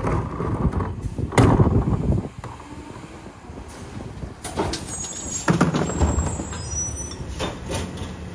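Garbage truck running, with loud metallic bangs in the first two seconds, the loudest about a second and a half in, and a few more clanks a few seconds later over a steady engine rumble.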